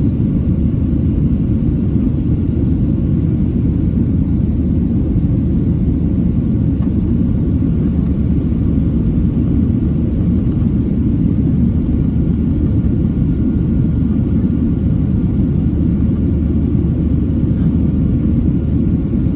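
Boeing 737-700 airliner's steady, low rumble of engines and airflow, unchanging throughout.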